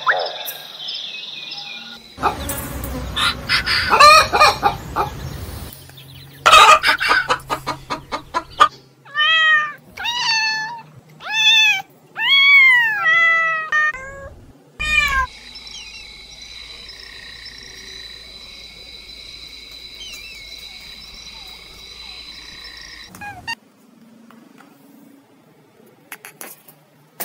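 Animal calls of several different kinds, cut one after another: harsh calls in the first part, then a string of short calls that rise and fall, about one a second, then a long steady high-pitched buzz.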